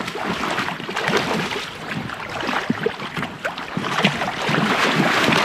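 Hooked rainbow trout splashing and thrashing at the surface of shallow, stony river water, in a run of short, irregular splashes that grows louder near the end.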